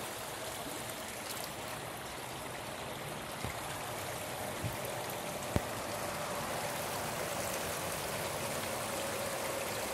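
Spring-fed headwater stream of the Sacramento River, a steady rush of shallow water running over rocks. A few light clicks sound in the middle.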